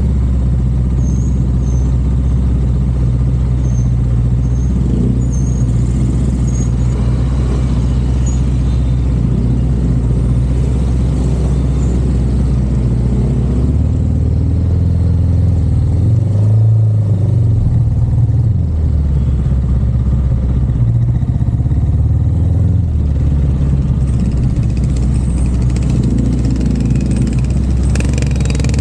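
A car driving, with a steady low engine and road drone. The engine note shifts up and down a few times in the middle as the car changes speed.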